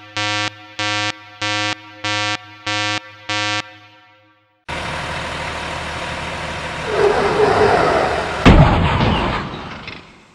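Six evenly spaced electronic beeps, a little under two a second. After a short pause comes a rushing noise that swells into a loud crash about eight and a half seconds in, then fades away.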